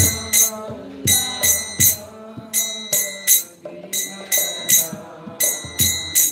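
Brass hand cymbals (kartals) struck in a repeating three-beat pattern, each strike ringing. Under them, a group of voices sings a line of a devotional chant, as in a call-and-response kirtan.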